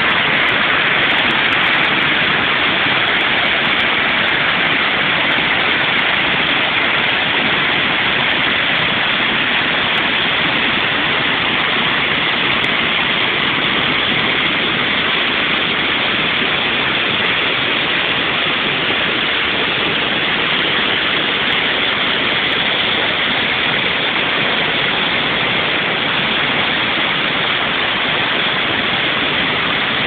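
Small waterfall cascading over boulders: a loud, steady rush of falling and churning water.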